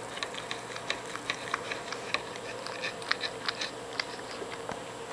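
A cat licking the edge of a George Foreman grill: its tongue makes a quick, uneven run of small clicking laps, a few a second, that die out near the end.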